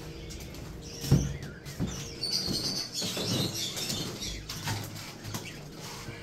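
A flock of budgerigars chirping and chattering, busiest in the middle, with a few sharp knocks or footsteps early on.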